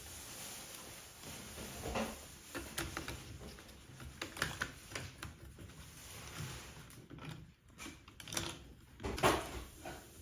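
Scattered light clicks and knocks of plastic and metal parts as a car radio display unit is handled and taken apart, with a few louder knocks about two seconds in and near the end.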